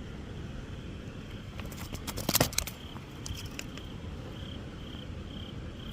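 Crickets chirping in a steady rhythm, about two chirps a second, over a steady low background noise. A short burst of clicks and rattles about two seconds in is the loudest sound.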